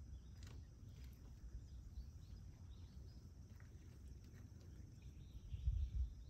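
Quiet outdoor background noise: a low rumble with a faint steady high hiss and a few faint high ticks, and louder low buffeting in the last second.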